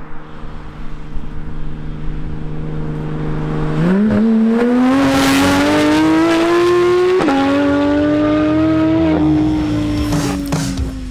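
Porsche 911 GT3 RS flat-six with a titanium exhaust, running at steady low revs and then accelerating hard about four seconds in. The revs climb, drop with an upshift about seven seconds in, climb again, then ease off near the end.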